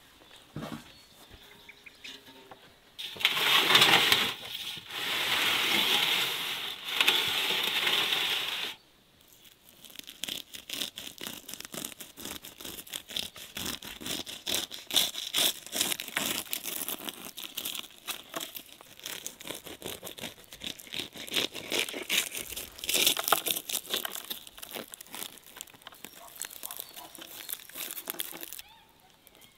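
Serrated knife sawing through the crisp, baked lavash crust of a shakh pilaf, giving dense crackling and crunching. The loudest crunching comes in three long stretches in the first third, followed by quicker, lighter crackles as the blade works through the crust.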